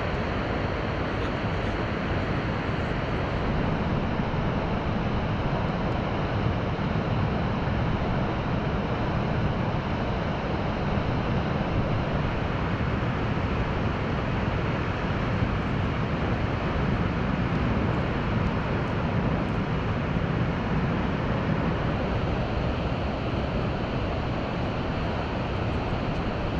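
Steady rush of heavy falling and churning water from Rjukanfossen waterfall and the white-water river below it, running at full flow.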